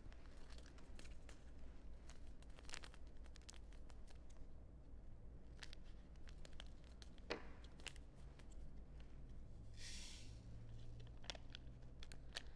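Faint scissors snips and crinkling as a small packet of active dry yeast is cut and handled, with scattered light clicks. About ten seconds in, a short rustle as the packet is torn open or tipped.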